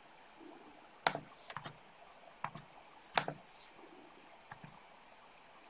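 A handful of faint, sharp, irregularly spaced computer clicks, as a slide presentation is advanced to the next slide.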